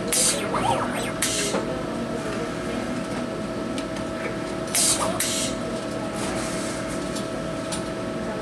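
Automated soldering machine running with a steady hum, interrupted by short hisses of air in two pairs, one pair just after the start and another about five seconds in, as the head works from one wire-to-tab joint to the next.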